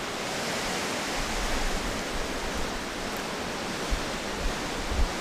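Wind rushing steadily through forest trees, with a few low thumps of wind buffeting the microphone near the end.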